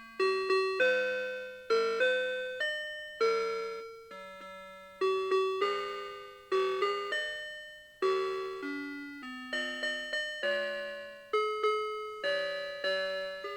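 Citizen 4RM753 Ghibli melody alarm clock playing one of its electronic alarm melodies: chiming, bell-like notes, several at a time, each struck sharply and dying away, at an easy walking pace.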